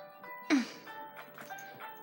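Background music of sustained, chime-like notes, broken about a quarter of the way in by one short, loud sound.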